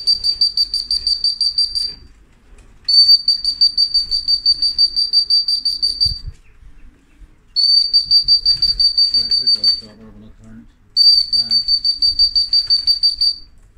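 A trilling whistle blown in long blasts of two to three seconds, four times with short pauses, to call returning racing pigeons down to the loft.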